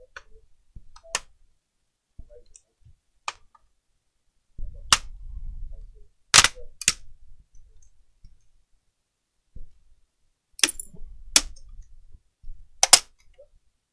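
Plastic snap-fit clips of a laptop's palmrest top case popping loose one after another as it is pried off the base: about eight sharp snaps spread unevenly, the loudest a little after the middle and near the end, with the rustle of hands handling the plastic between them.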